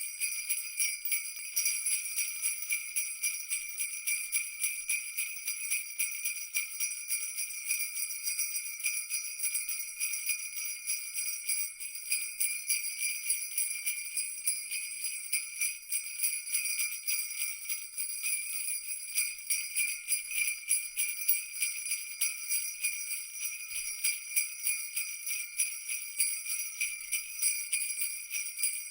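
Christmas jingle bells shaken continuously in a fast, even jingle, all bright and high with no low end.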